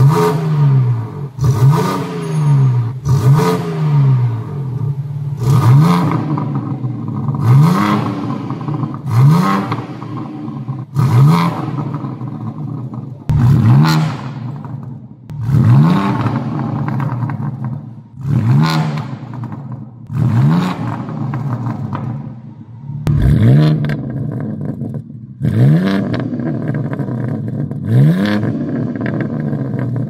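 BMW G82 M4's twin-turbo inline-six through an Armytrix sport-cat downpipe and Valvetronic valved exhaust, revved again and again at standstill: about fourteen quick throttle blips, each rising sharply in pitch and falling back to idle. The later blips come with the exhaust valves open.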